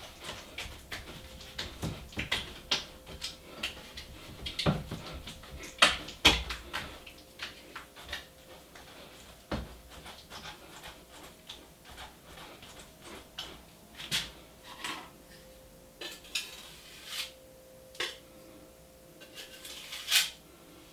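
Metal drywall knife scraping and clicking against a mud pan while joint compound is mixed and worked: irregular short scrapes and taps with brief pauses.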